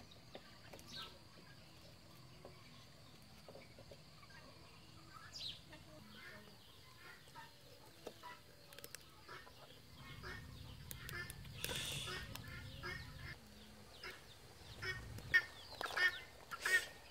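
Chickens clucking at intervals, more often in the second half, with a few louder sharp knocks near the end.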